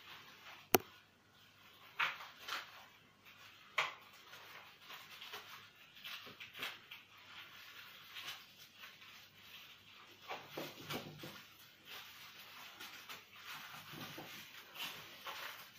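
Plastic cling film crinkling and rustling as it is wrapped tightly around a small bundle by hand. A sharp click comes about a second in, louder crackles follow around two and four seconds in, and softer irregular rustling continues after.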